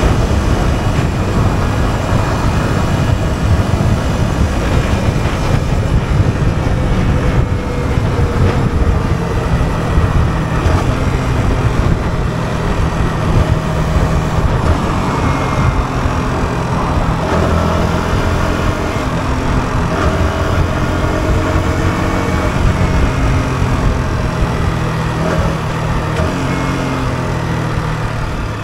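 Yamaha R125's single-cylinder four-stroke engine running while the bike is ridden in city traffic, its note shifting up and down with the throttle.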